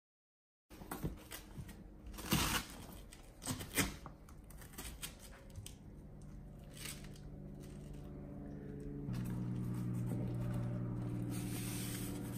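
Vinyl cargo liner with a hook-and-loop (Velcro) backing being handled and pressed into place, with short rustles and a couple of brief rips. A steady low hum runs underneath, and it changes and grows louder about nine seconds in.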